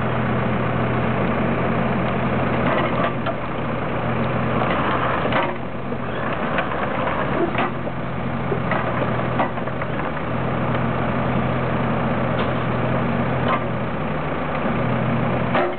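Kubota KX161-3 mini excavator's four-cylinder diesel engine running steadily while the machine slews and tracks, its low note shifting now and then under hydraulic load. Occasional sharp clanks from the moving machine.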